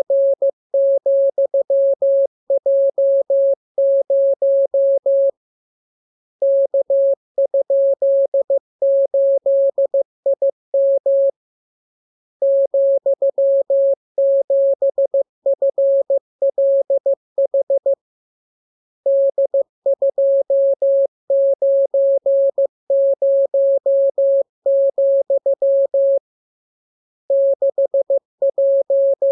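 Morse code practice transmission: a single pure tone keyed on and off in dots and dashes, sent as groups of characters with pauses of about a second between groups.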